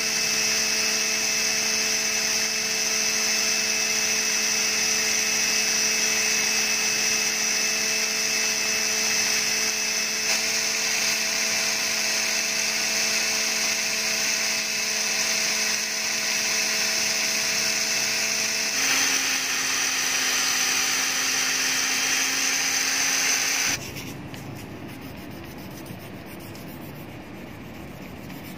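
Electric drill running steadily while sandpaper is held against the spinning steel pin of a blind rivet to grind it down. Its tone changes slightly about two-thirds of the way through. The drill stops near the end, leaving a quieter scratchy rubbing of sandpaper worked by hand along the pin.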